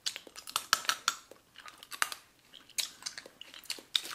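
Hard sour candy clicking against teeth while being sucked, with wet mouth smacks: a quick, uneven scatter of small sharp clicks picked up close by the microphone.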